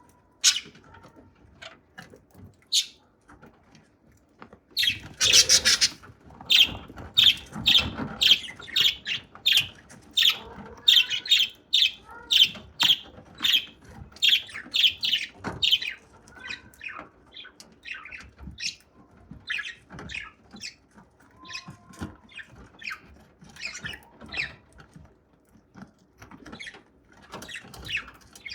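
Budgerigar cracking and husking seeds with its beak: a run of crisp clicks, several a second, loudest from about five to sixteen seconds in and thinning out after that.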